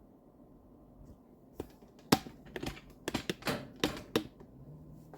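A quick, uneven run of about ten sharp plastic-sounding clicks and taps over about two and a half seconds, starting about a second and a half in. The loudest click comes just after two seconds.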